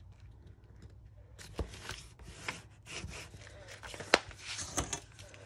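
Large paper envelope rustling and crinkling as it is folded, smoothed and opened out by hand, with a few short taps and one sharp click about four seconds in.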